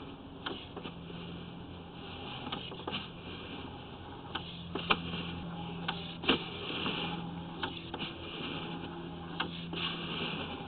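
Sewer inspection camera rig with its push cable being drawn back through a clay sewer lateral: a steady electrical hum with irregular clicks and knocks, the sharpest about five and six seconds in.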